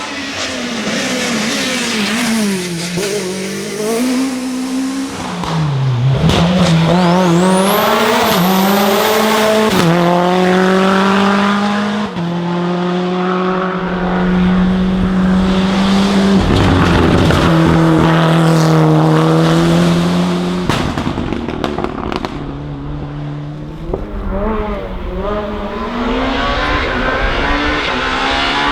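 Racing car engines running at high revs up a hill-climb course, their pitch climbing and dropping sharply with each gear change and holding high in stretches between. The sound switches abruptly several times from one car to the next.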